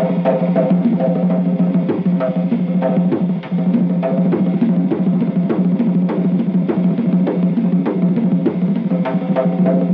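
Music with a steady drum beat, about two to three strokes a second, over a sustained low tone.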